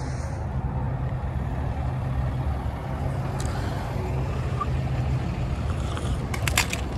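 A motor vehicle running: a steady low rumble, with a few sharp clicks and rattles near the end.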